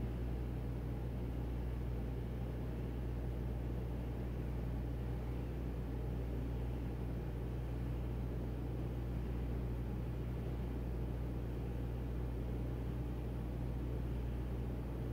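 Steady low hum and rumble of running machinery or ventilation, unchanging throughout.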